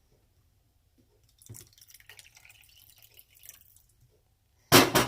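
Water being measured into a bowl with a half-cup measuring cup: a faint splashing trickle for about two and a half seconds, then a sharp, loud knock near the end.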